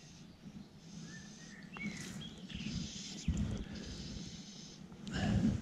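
Birds singing: short whistled notes and bursts of high trilling over a low steady background, with two low rumbles on the microphone about three and five seconds in.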